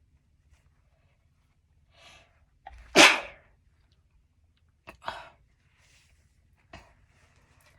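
A person sneezing: a short intake of breath, then one loud sneeze about three seconds in. A second, smaller sneeze follows about two seconds later, and a short sharp sound comes near the end.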